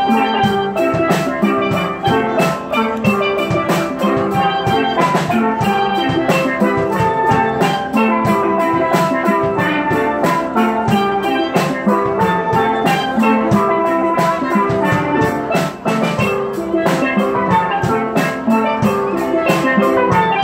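A steel band playing live: several steel pans ringing out a melody and chords over a drum kit keeping a steady beat.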